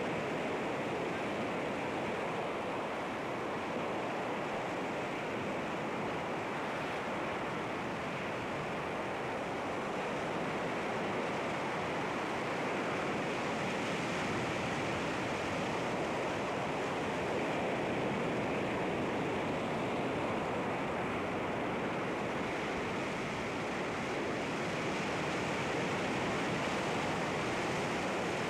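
Sea waves washing against rocks, a steady rushing surf that swells and eases gently.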